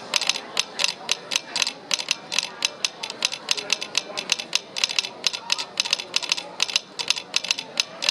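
Telegraph sounder clicking out Morse code as a hand key is worked: quick, uneven runs of sharp clicks.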